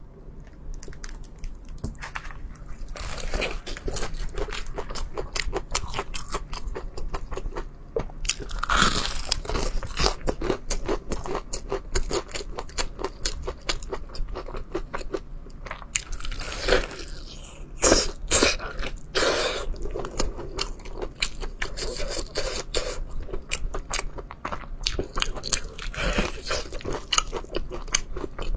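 Close-miked chewing and biting of crunchy food: a dense run of crisp crunches, with louder bursts of crunching about nine seconds in and again around eighteen to twenty seconds in.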